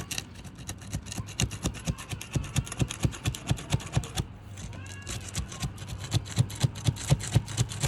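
Pry bar working under asphalt shingles, breaking the seal strips: a fast run of sharp clicks and crackles, several a second, over a low hum.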